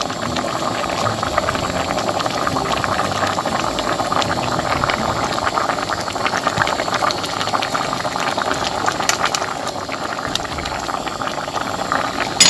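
Kimchi stew at a rolling boil in a pot: a dense, steady crackle of bursting bubbles, with one sharp knock near the end.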